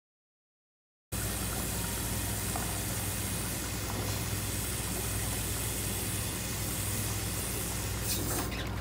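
Tap water pouring from a faucet into a nearly full plastic container in a stainless steel sink: a steady rush that starts about a second in, over a steady low hum. A few brief knocks near the end as the tap is handled.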